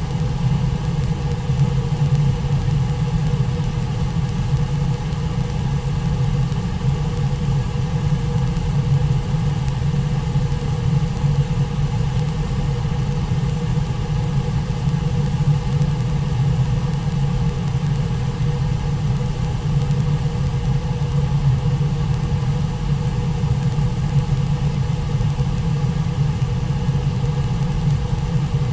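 Brooks River rushing through the rapids below Brooks Falls: a steady, deep rushing sound with no break.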